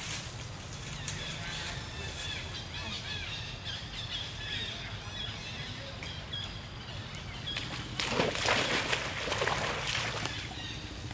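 Small birds chirping over a steady low rumble, then about eight seconds in a loud burst of water splashing for about two seconds as a monkey moves through the shallow pool.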